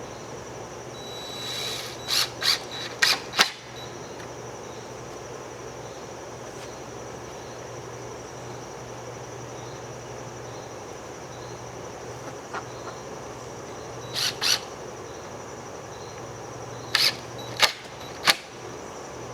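Steady insect drone with a thin high tone and a low hum, broken three times by groups of two to four short, sharp, high-pitched sounds.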